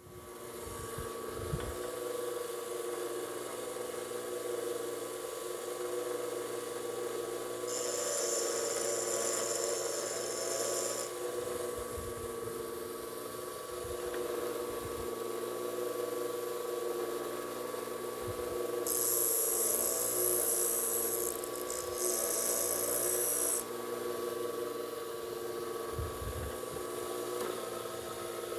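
Bench grinder running with a steady hum and a faint held whine. A lathe tool bit in its toolholder is pressed to the wheel three times, adding a high grinding hiss for about three seconds each time, about a third of the way in and twice more later on.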